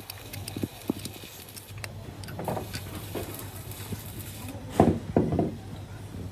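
Scattered knocks and clinks of hard objects being handled during workshop repair work, the loudest cluster about five seconds in, over a low steady hum.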